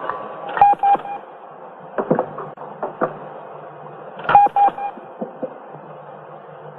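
Electronic beeping: a quick group of three short beeps that repeats about every three and a half to four seconds, with a few sharp clicks in between, over a low steady hum.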